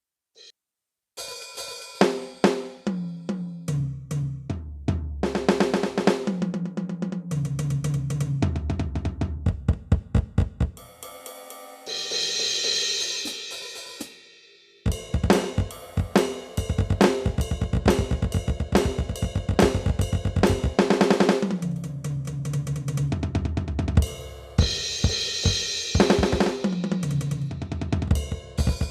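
Aroma TDX-16S electronic drum kit's sound module playing drum sounds. A fast beat of kick, snare and hi-hat starts about a second in, with rolling tom fills that step down in pitch and ringing cymbal crashes.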